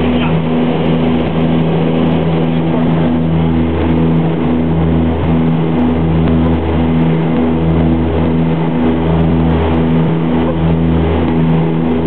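Russian-built turboprop airliner's engines and propellers at takeoff power, heard from inside the cabin during the takeoff roll and climb-out. A loud, steady drone with a slow throb about every second and a half.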